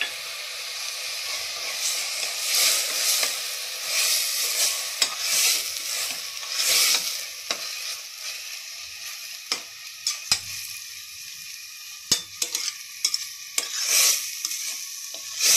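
Tomatoes, onions and ground masala sizzling in hot oil in a metal pressure cooker, stirred with a metal spatula: a steady frying hiss with repeated scraping swishes and sharp clicks of the spatula against the pot, the clicks coming more often in the second half.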